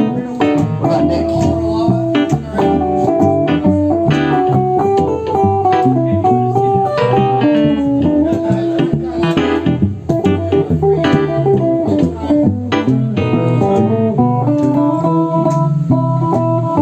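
Live band playing a song: electric guitar, electric bass, drums, keys and saxophone, with guitar-like melodic notes prominent over a steady bass line and beat.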